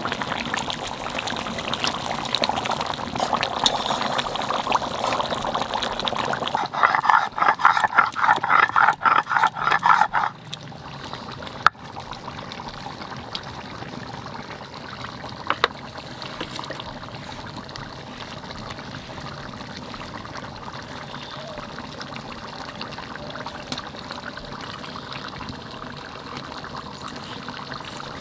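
Curry bubbling in a pot, then a stone roller rubbed back and forth on a flat grinding stone (shil-nora) grinding garam masala paste, in rhythmic strokes for about four seconds. After that, quieter scraping of the paste with a few light clicks.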